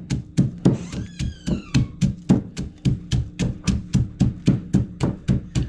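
Rapid, even chopping on a chopping board, about five strokes a second, as when mincing meat. A short, high call that falls in pitch cuts in about a second in.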